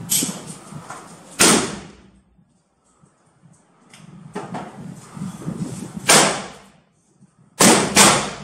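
Black-powder muzzle-loading guns firing at a shooting range: about five loud shots at irregular intervals, each with a short ringing tail, the last two close together near the end.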